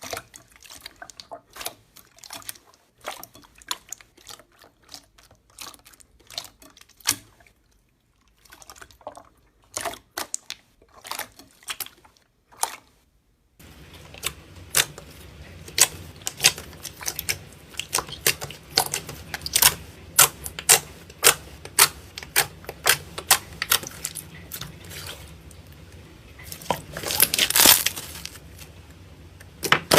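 Slime being squeezed and worked by hand, giving quick sticky clicks, pops and crackles. They are sparse at first and come thicker and louder from about halfway, over a steady low hum.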